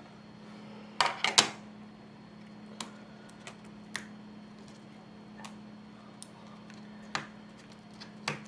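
Light clicks and taps of small tools and iPhone parts being handled on a work surface: a quick cluster of three about a second in, then single clicks every second or so, over a faint steady hum.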